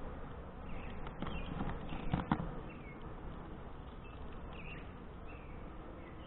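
Honeybees buzzing faintly around an opened hive. A few sharp knocks and scrapes come from about one to two and a half seconds in, as the wooden, foil-covered inner cover is handled and lifted off.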